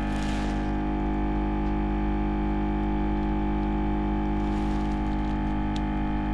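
Steady electrical mains hum with many evenly spaced overtones, with faint scraping of a thin cutting wire being drawn between a cracked phone touch glass and its display briefly at the start and again about four and a half seconds in.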